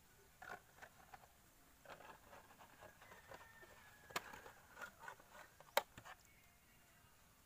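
Light handling noises: a scattering of small clicks, taps and scrapes as plastic bottles and fuel filter parts are moved about, with two sharp clicks about four and six seconds in.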